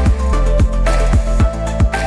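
Background music with a steady electronic beat, sustained bass and bright melodic notes.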